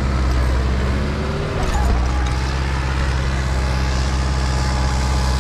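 Same tractor's diesel engine labouring under heavy load as it pushes through deep snow on chained tyres. The engine note sags briefly about a second in and picks back up just before two seconds.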